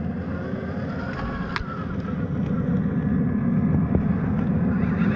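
Traxxas TRX-4 RC crawler's electric motor and geared drivetrain whining as it crawls over snowy stumps, the whine wavering in pitch with the throttle. A short sharp click about one and a half seconds in.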